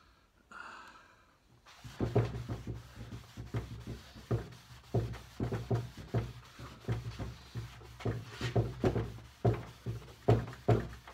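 Hand buffing of a freshly waxed pine tabletop with a cloth pad, starting about two seconds in: quick back-and-forth rubbing strokes, about three a second, each with a low rumble through the table.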